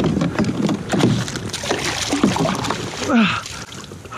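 Hooked chain pickerel thrashing and splashing at the water's surface right beside a kayak as it is brought to the net. There is a dense run of splashes that eases off after about three seconds.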